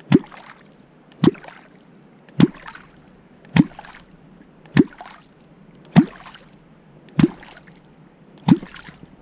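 Catfish clonk struck into the river surface at a steady beat, about one stroke every 1.2 seconds, each a sharp splash with a short, low, upward-gliding 'clonk'. This is clonking, the old method of calling wels catfish to the bait.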